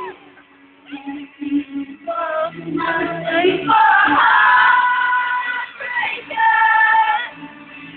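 Music with singing: held sung notes that step from pitch to pitch, a female voice among them, quiet for about the first second and louder from about two seconds in.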